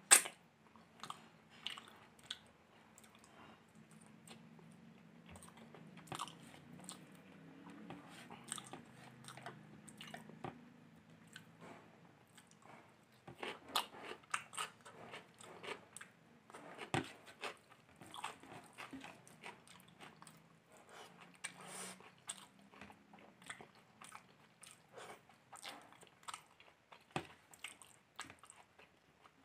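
Close-miked chewing and lip smacks of a person eating biryani, egg curry and a fried chicken chop by hand, in many small irregular clicks and squishes. Fingers mix rice on the plate between bites. A sharp click right at the start is the loudest sound.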